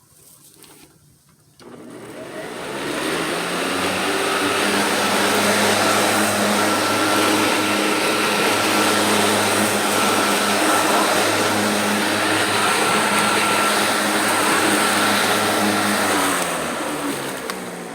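Sun Joe electric hover lawnmower starting up about two seconds in and running steadily with a whine, then winding down near the end.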